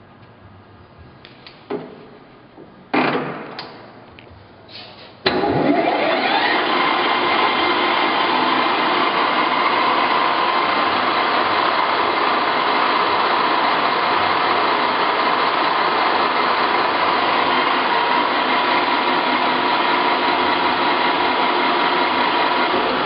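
A few clunks as the Howa 1000 engine lathe's headstock speed levers are shifted. About five seconds in, the spindle starts, winds up quickly, then runs steadily with a whine from the headstock gearing.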